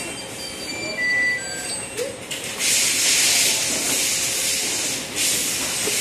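Steady hiss of compressed air from a pneumatic fixture. It starts about two and a half seconds in, breaks off briefly near the end and starts again, over a low rumble of factory machinery.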